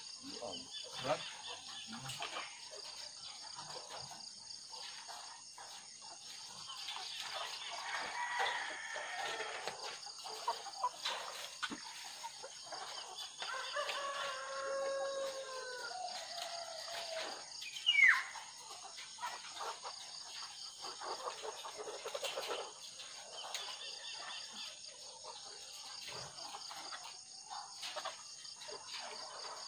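A flock of caged point-of-lay hens clucking and calling on and off, with one brief louder call about two-thirds of the way through.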